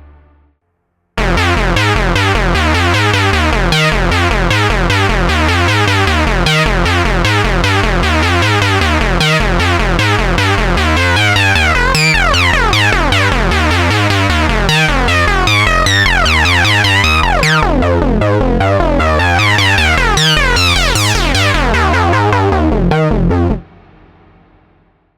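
Moog Sub 37 analog synthesizer playing a dense, gritty lead patch ("Doom Lead") with reverb. It enters about a second in, with a low note pattern repeating about every two seconds under rapidly changing, sweeping upper tones. It cuts off sharply near the end, leaving a fading reverb tail.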